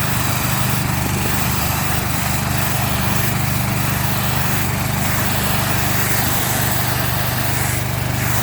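Gas-engine pressure washer running steadily at a constant speed, with a continuous hiss of water spray over the engine's drone.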